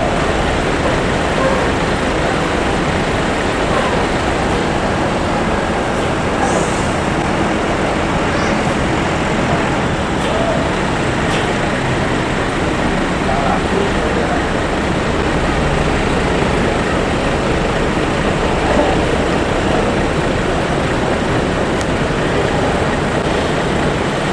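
Steady road noise of motor traffic or a moving vehicle: a continuous rushing noise with no distinct events.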